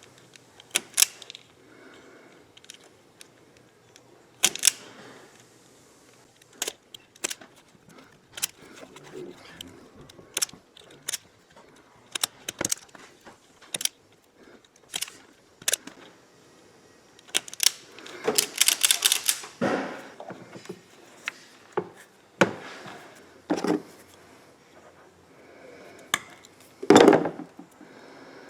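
Irregular sharp clicks and clacks of hand tools and metal parts being handled, with a quick run of rattling clicks about eighteen seconds in and a louder knock near the end.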